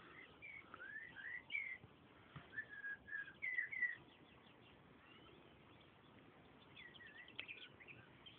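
Faint songbird song: a run of short, sliding whistled phrases over the first four seconds, then a quick twittering trill near the end.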